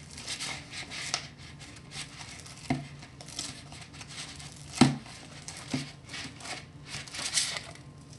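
Hands kneading sticky glue slime, freshly activated with contact lens solution and baking soda, in a clear plastic bowl: squelching and rubbing, with a few sharp knocks against the bowl, the loudest about five seconds in.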